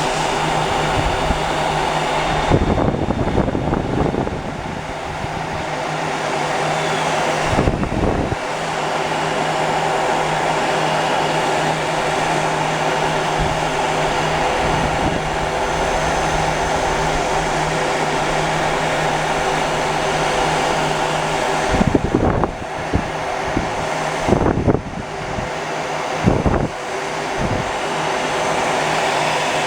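Heat gun blowing steadily with a constant low motor hum, shrinking clear heat-shrink tubing down over an airsoft FCU. A few short gusty rumbles are heard, about 3, 8, 22, 25 and 26 seconds in.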